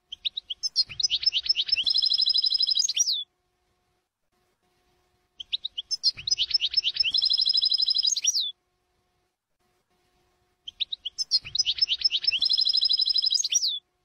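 European goldfinch song, the same phrase repeated three times as on a looped tutoring recording. Each phrase is a quick run of chirps that runs into a trill and ends on a falling note.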